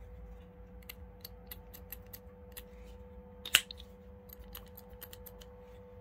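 Benchmade AFO-series push-button automatic folding knife firing its blade open with one sharp, loud snap about halfway through, amid a run of light clicks from the knife being handled.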